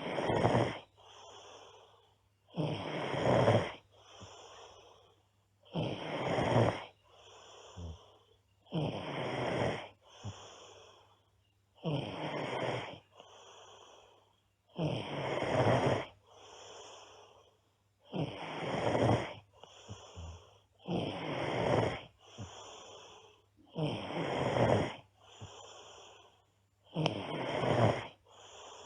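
A girl snoring loudly and regularly. A loud snore comes about every three seconds, each followed by a softer breath.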